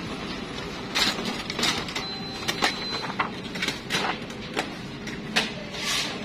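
Canon imageRUNNER Advance office copier running with a steady hum, with a string of sharp clicks and clacks starting about a second in.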